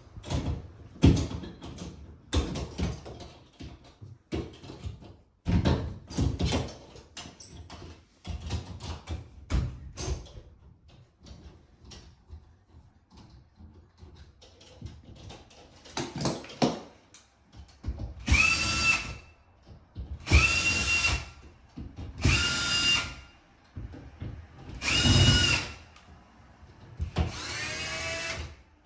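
Irregular knocks and clicks of hand work on a metal washbasin mounting plate, then a cordless drill-driver driving screws into the plate in five short runs of about a second each, each a whine that spins up, holds and stops, the last one dropping in pitch as it slows.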